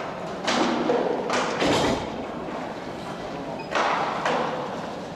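Sharp knocks and thuds of inline hockey play: the puck, sticks and players striking the rink boards, about five in a few seconds, each ringing briefly in a large hall.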